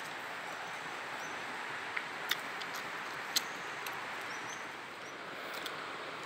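Steady rush of flowing river water in a rocky gorge, with a few sharp clicks about two and three seconds in.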